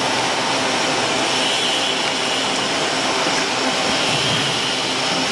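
Bubble-water filling and capping machine running: a steady, unbroken mechanical whir with a hiss and a few faint steady tones.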